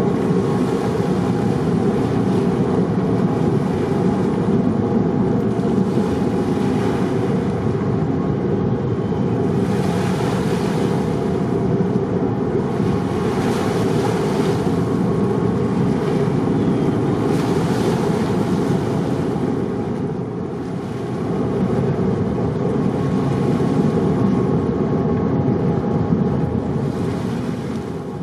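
Car ferry's engines running with a steady rumble and faint hum, mixed with rushing water and wind on the microphone; the hiss of the water swells every few seconds.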